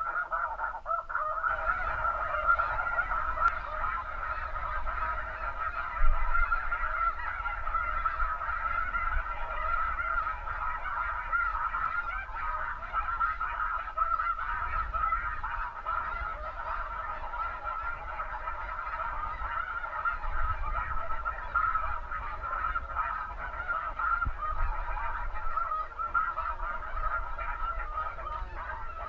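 A large flock of snow geese calling overhead: a dense, continuous chorus of high honks, with wind rumbling on the microphone.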